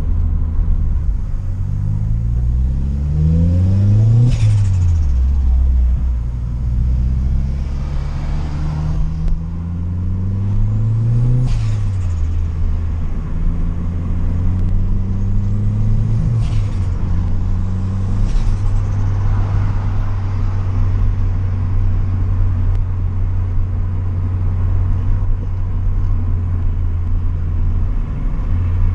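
Turbocharged Toyota Corolla four-cylinder (4E-FE with CT20 turbo) accelerating hard, revs rising then dropping at each gear change, with a high turbo whistle and a sharp turbo flutter on lift-off four times. It then cruises at a steady engine note for the last ten seconds.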